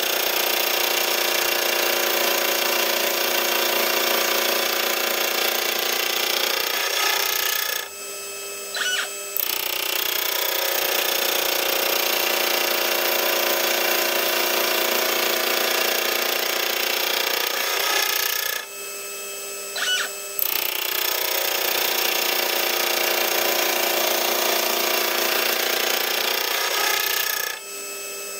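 Milling spindle running a gear cutter through a change-gear blank, a loud steady grinding cutting noise. Three times, about every ten seconds, the cutting stops for a second or two, and a short whine is heard as the stepper-driven rotary table indexes the blank to the next tooth.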